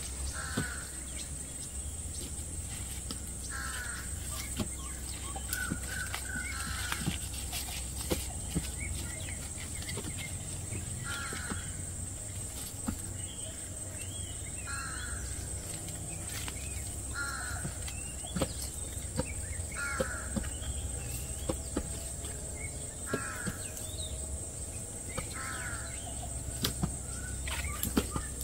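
A bird calling over and over, about ten short harsh calls spaced two to four seconds apart, over a steady high-pitched whine. Light crackles and rustles of plastic fruit bags being handled.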